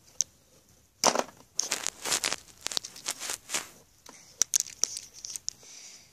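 Rustling and scraping of plush toys being handled and rubbed close to the microphone, in loud bursts for a few seconds, followed by a few sharp clicks.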